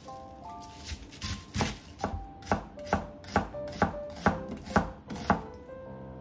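Kitchen knife chopping vegetables on a plastic cutting board: about ten sharp, even strokes, roughly two a second, stopping a little before the end.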